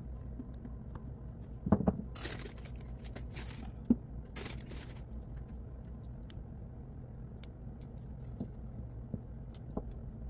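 Small hard objects being handled on a work surface: scattered light clicks and taps, two short rustling scrapes, and a couple of louder knocks, over a steady low hum.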